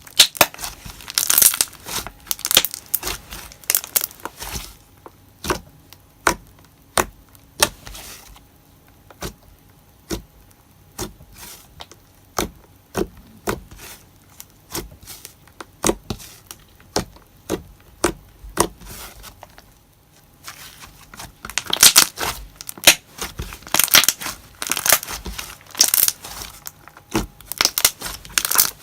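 Glossy slime worked by hand, with trapped air bubbles popping in sharp clicks about once a second, then a denser run of crackling pops near the end.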